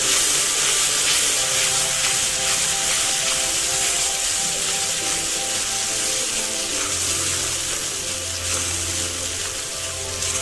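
Onion and green-chilli paste sizzling in hot oil in an aluminium kadai, stirred and scraped around the pan with a metal spatula.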